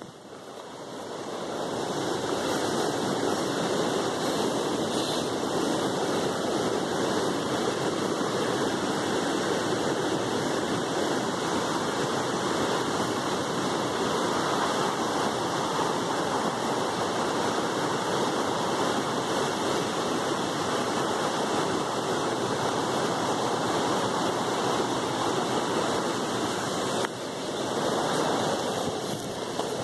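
Steady rushing noise on the microphone. It builds up over the first couple of seconds and dips briefly near the end.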